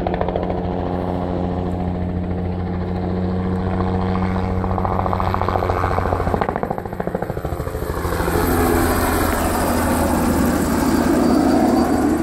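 Crop-spraying helicopter's rotor and engine running steadily. The sound dips briefly about halfway through, then grows louder with a shifting pitch as the helicopter comes in low overhead near the end.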